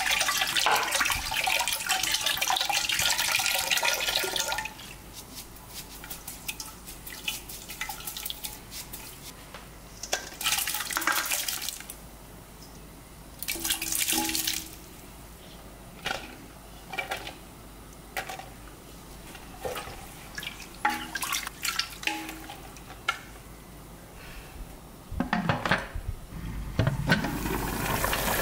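Dark soy sauce poured from a bottle into a pressure-cooker pot of broth: a steady splashing pour lasting about five seconds. Further short pours and the clatter of peeled quail eggs tipped in from a strainer follow, with scattered knocks of utensils on the pot.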